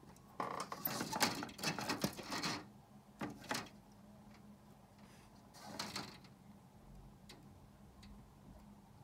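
Handling noise from the recording phone being moved: a cluster of rustling and knocking close to the microphone for about two seconds, two more short bursts a little later, over a faint steady hum.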